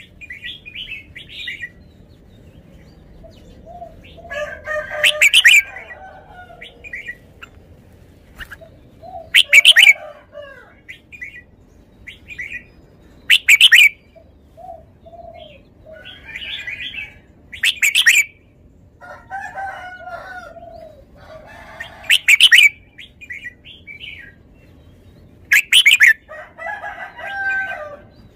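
Red-whiskered bulbul singing: a loud, brief call about every four seconds, with softer chirping phrases in between.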